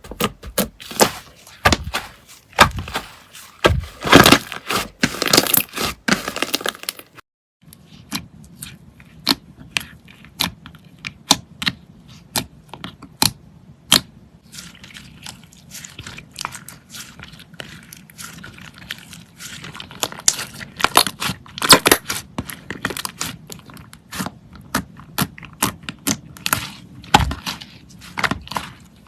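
Slime being pressed and pulled by hand, making many sharp crackles and pops. About seven seconds in it cuts to another clip, where the crackling goes on over a faint low hum.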